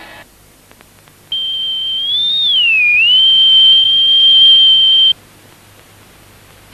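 A cartoon whistle sound effect: one high, pure tone held for about four seconds, rising slightly and then dipping about a second after it starts before settling back to a steady pitch, then cutting off suddenly.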